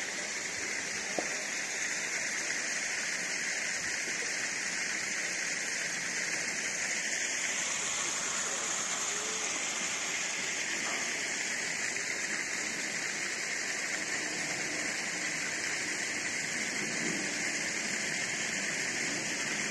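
Steady rush of running water, even throughout, with faint voices in the background.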